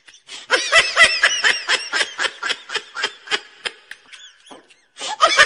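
High-pitched laughter in quick, repeated giggling bursts, with a short pause about four seconds in.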